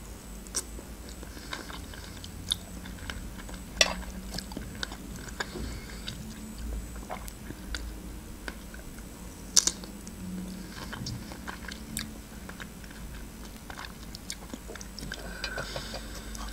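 Close-up chewing and wet mouth sounds of someone eating fresh strawberries dipped in melted chocolate, with lip smacks and scattered short clicks. Two sharp clicks stand out, about four seconds and nine and a half seconds in.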